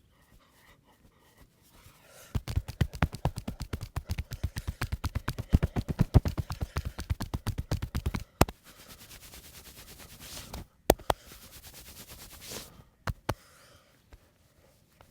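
Rapid percussive massage strokes, hands striking the body about seven times a second for some six seconds. They are followed by a steady rubbing hiss broken by a few sharp snaps.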